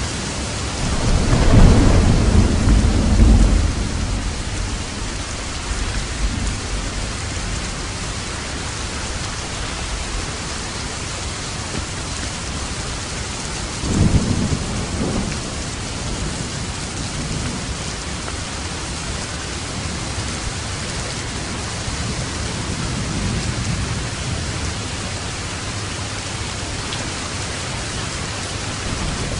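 Steady heavy rain with thunder: a loud rolling rumble of thunder about a second in, lasting a few seconds, and a second, shorter clap about halfway through.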